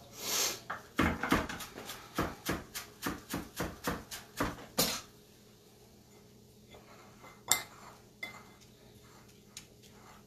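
Utensil clinking and scraping against a bowl while spiralized sweet potato is mixed: a quick run of strokes, about four a second, for the first five seconds, then a few single clinks.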